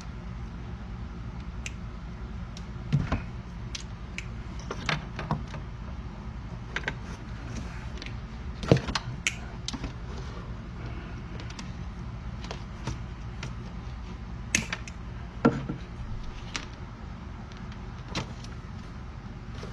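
Scattered sharp clicks and light knocks of hand tools and wiring being handled, a few of them louder, over a steady low hum.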